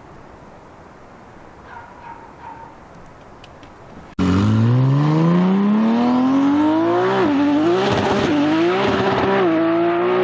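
Faint steady hiss, then about four seconds in, a hard cut to a loud car engine revving hard. Its pitch climbs steeply and holds high with a few small dips, with tyre noise mixed in.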